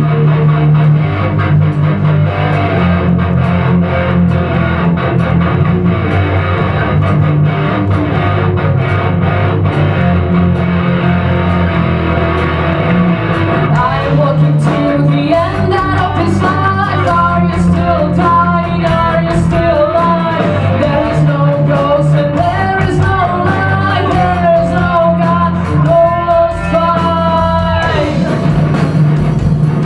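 Rock band playing, with electric guitar, bass and drums. A female voice starts singing about halfway through.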